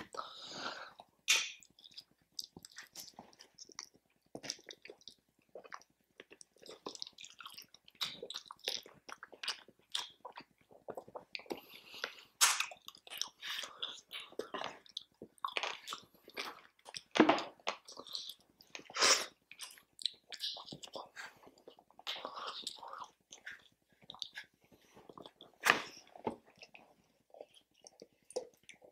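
A person chewing and biting into food close to the microphone: irregular wet chewing and mouth sounds, with a few sharper, louder bites or smacks scattered through.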